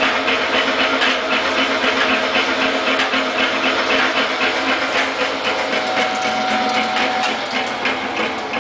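Hobart 4346 meat mixer-grinder running with its 7.5 hp motor, the mixing paddles turning in the empty stainless hopper: a steady motor hum with a fast, even mechanical rattle. The sound eases off slightly near the end.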